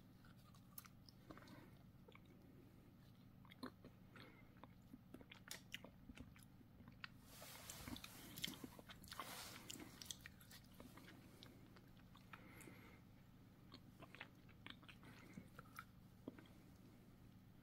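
Faint biting and chewing on a frozen chocolate ice cream bar: scattered small mouth clicks and crunches, with a louder stretch of biting and chewing about halfway through.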